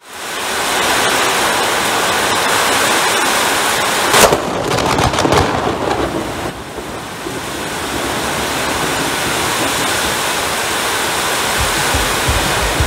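Steady heavy rain, with a loud crack of thunder about four seconds in that crackles on for about two seconds.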